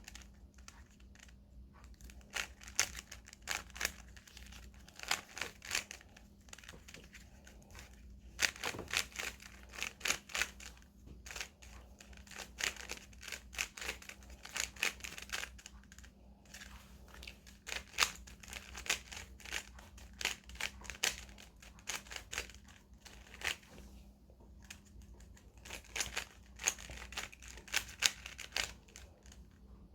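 Plastic Rubik's cube being turned quickly in the hands, its layers clicking and clacking in rapid bursts with brief pauses between them.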